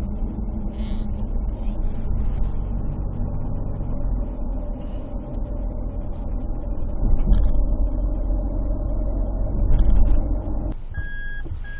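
Steady low engine-and-motion rumble of a vehicle in motion. About a second before the end it gives way to music.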